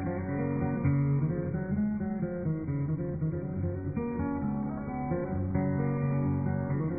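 Background music of plucked and strummed acoustic guitar, heard through a narrow, headset-like audio feed.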